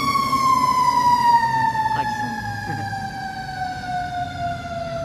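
Fire truck siren sounding one long tone that falls slowly and steadily in pitch, with the truck's engine running underneath.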